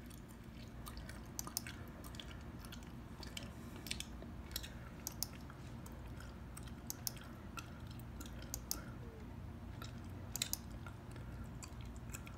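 Gum being chewed: soft, irregular smacking clicks, with a steady low hum beneath.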